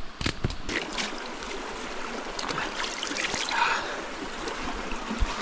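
Small bush stream trickling, with a few sharp knocks in the first second.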